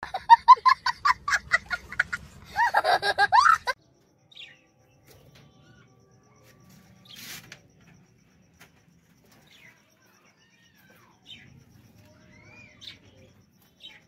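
A young child laughing loudly in quick, high-pitched pulses for the first few seconds, then budgerigars chirping faintly and sparsely.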